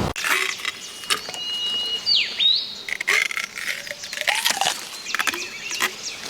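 Close-up crackling and snapping of stalks and twigs being handled, with a bird calling: a thin held whistle, then a quick swoop down and back up about two seconds in.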